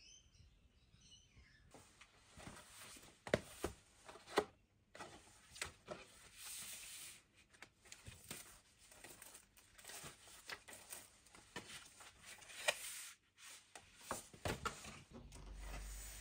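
Packaging being handled and torn open: tearing and crinkling of plastic or tape with rustling, and sharp clicks and knocks of cardboard and packed parts, starting about two seconds in.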